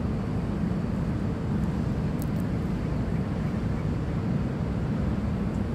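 Steady low rumble of outdoor background noise, with a few faint ticks about two seconds in.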